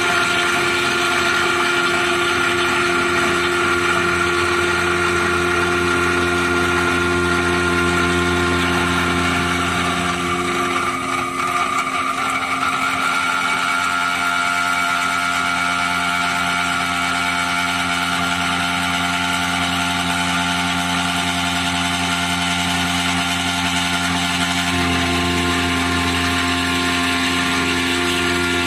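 3-axis CNC milling machine cutting a circular pocket in a metal block with an end mill under flowing coolant: a steady spindle-and-cutting noise with several held tones. The sound changes briefly about eleven seconds in and shifts again about twenty-five seconds in.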